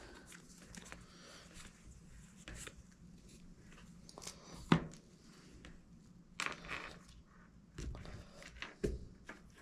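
Paper stickers being handled and sorted: soft rustles and a few light taps, the sharpest about halfway through.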